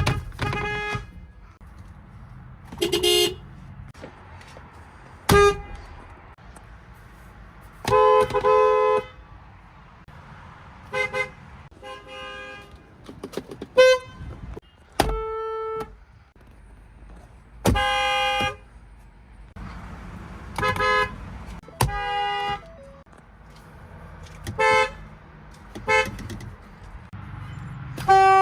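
A string of car horns sounded one after another, each a short beep or a quick double beep, about a dozen in all, with each horn at its own pitch. Faint low background noise fills the gaps between the honks.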